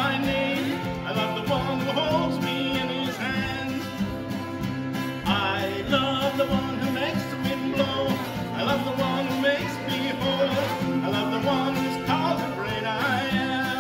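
Harmonica in a neck rack played together with an acoustic guitar laid flat across the lap, a country-style tune. The harmonica's wavering held notes sit over the guitar's steady chords.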